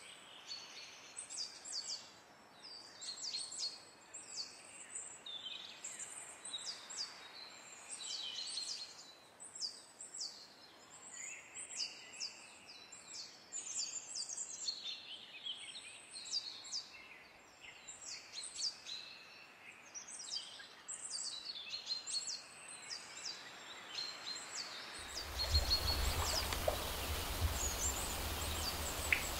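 Small birds chirping and twittering in quick, high, repeated calls over a quiet outdoor background. About 25 seconds in, it changes to a louder, steady outdoor hiss with a low rumble.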